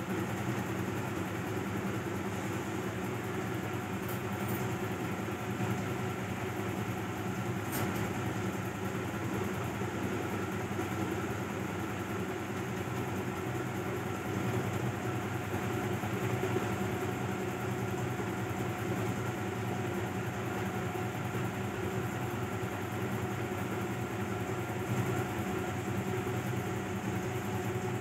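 Steady low hum with a few faint steady tones over it, unchanging throughout.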